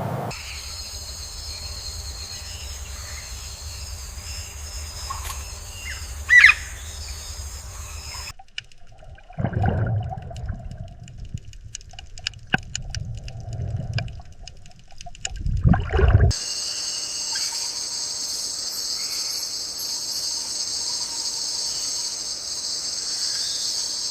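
Nature ambience with a steady high buzzing drone, like insects, and a short rising chirp, like a bird, about six seconds in. In the middle the drone cuts out and a few low, louder sounds come from an unseen animal, then the drone returns.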